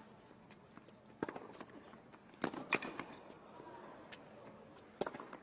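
Tennis ball struck by racquets during a rally on a hard court: a handful of sharp pops, about a second in, twice in quick succession about two and a half seconds in, and once more near the end.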